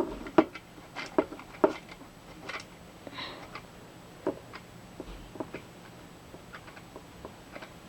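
Small irregular clicks and taps of a clock being handled as its time is set.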